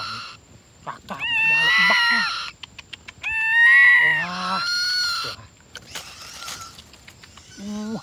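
Birds of prey calling: two long, harsh, pitched screams with wavering pitch, the first about a second in and the second about halfway, with a quick run of clicks between them.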